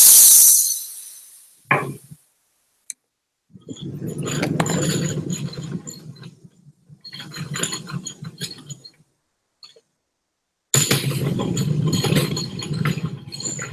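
A short blast of compressed air from an air-hose blow nozzle, fading away over about a second. Then a knock, and two long stretches of rubbing, knocking and clicking as the camera is picked up and carried along.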